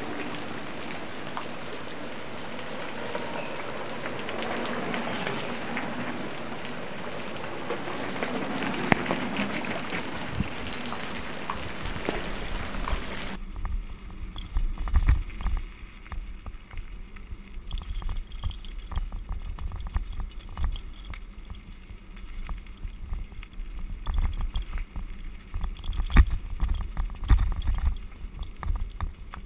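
Camera microphone on a mountain bike riding down a gravel road. For about the first half there is an even hiss with fine crackle. After a cut about halfway through, wind buffets the microphone in low, gusty rumbles, with sharp clatters from the bike on the stones.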